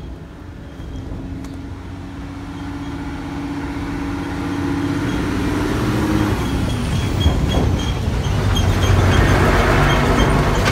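A motor vehicle approaching on the road and passing close. Its engine hum grows steadily louder over several seconds, and engine and tyre noise are loudest near the end as it goes by.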